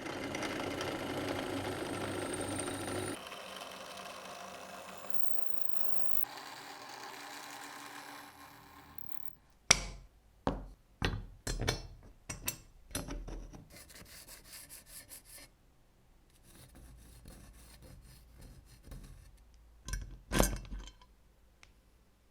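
Hand work on a tool in the workshop: about three seconds of loud rubbing or scraping, a quieter stretch of the same, then a quick run of sharp knocks and, near the end, two loud knocks close together.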